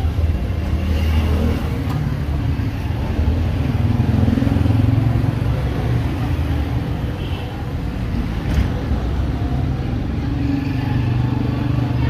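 Steady low rumble of motor traffic passing on a street, with a single sharp click about eight and a half seconds in.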